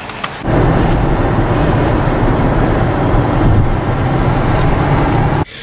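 Steady, loud road and engine noise of a car driving, with no speech over it. It starts suddenly about half a second in and cuts off suddenly near the end.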